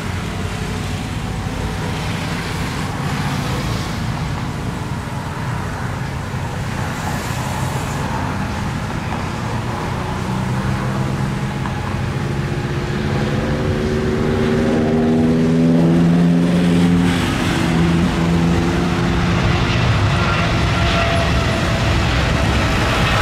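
Boeing 777-300ER's GE90 jet engines at takeoff thrust during the takeoff roll: a steady jet roar that grows louder as the airliner approaches. Engine whine tones rise in pitch as it nears and drop as it passes, about two-thirds of the way through.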